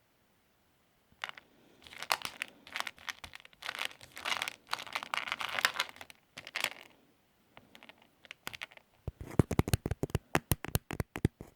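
Plastic packaging crinkling and crackling for several seconds, then a quick run of sharp clicks near the end.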